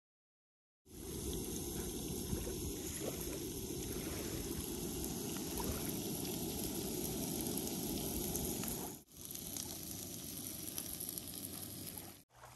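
Diced potatoes sizzling in a frying pan over a canister camp stove, a steady frying sound with a brief break about nine seconds in.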